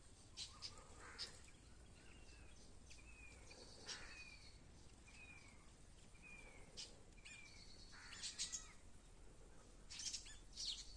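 Birds chirping faintly: a run of short falling chirps repeating about every two-thirds of a second through the middle, with sharper chirps near the start and clusters of them near the end.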